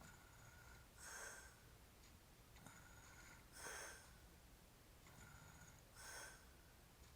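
A passed-out drunk man breathing in his sleep: three faint, noisy breaths, about one every two and a half seconds.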